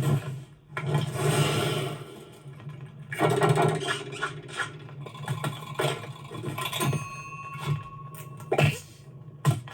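Animated-film sound effects: a steady low hum under a busy mix of scraping and clicking noises, with several sharp cracks and a few short held tones.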